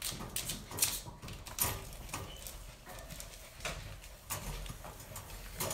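Puppies moving about, with irregular light taps and scuffles, about six or seven in all.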